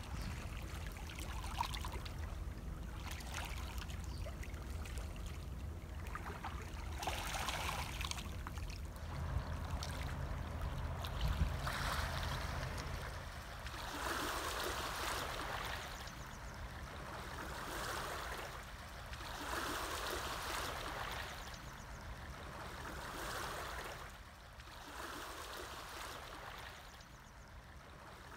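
Low hum of a motorboat's engine out on the lake, then from about halfway small waves washing onto a pebble shore in slow swells every two to three seconds, fading toward the end.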